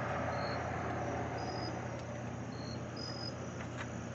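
Crickets chirping: short high chirps about once a second, at two slightly different pitches, over a steady hiss, with a few faint clicks near the end.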